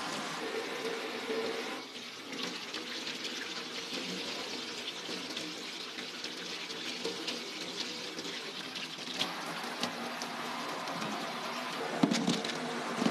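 Tap water spraying from a faucet and splashing over hands as they rinse salted duck egg yolks. A few sharp knocks come near the end.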